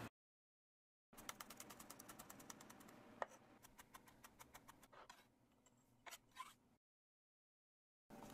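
Chef's knife rapidly chopping garlic on a cutting board: a quick run of taps, about ten a second, that starts about a second in and grows fainter over a few seconds, with a couple of single knocks later on.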